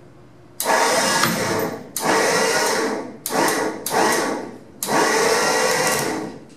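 Hand-operated hoist being worked to lift a car body on straps: five strokes of grinding, rattling mechanical noise, each about a second long with short pauses between.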